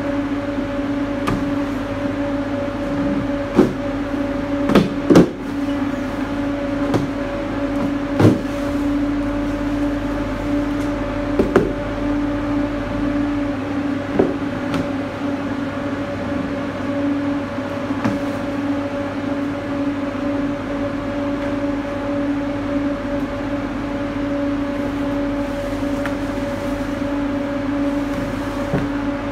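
Steady hum of a refrigerated delivery truck's cooling unit, with scattered knocks and thuds as cases of canned soda and plastic crates are set down in the cargo box. The loudest knocks come about four to five seconds in and again about eight seconds in.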